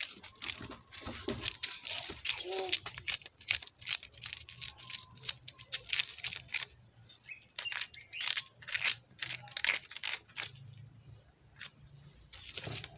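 Metal spoon scraping the jelly-like pulp and seeds out of a halved horned melon (kiwano) onto a plate of rice: a run of quick clicks and scrapes that thins out near the end.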